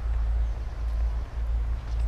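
Wind buffeting the microphone in a steady low rumble, with a few faint, short bird chirps above it.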